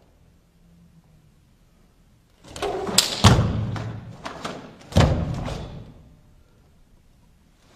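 Quiet for a couple of seconds, then a quick run of sharp cracks and thuds from a karateka's kata movements, the cotton gi snapping and bare feet striking the wooden dojo floor, with another strong one about five seconds in, each echoing in the hall.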